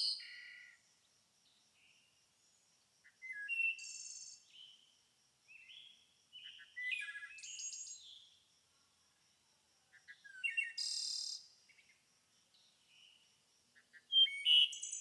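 Bird calls: short high chirps and whistled notes in groups a few seconds apart, with dead silence between them and a faint steady high-pitched pulsing underneath.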